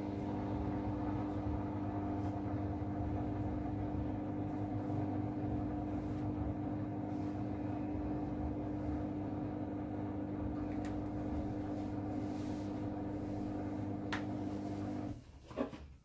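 Samsung Ecobubble front-loading washing machine running early in a cotton cycle: a steady low hum with a few fixed tones that stops abruptly about fifteen seconds in, followed by a single click.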